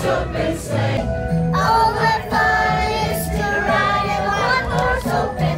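A carriage full of passengers, children among them, singing a Christmas song together over backing music.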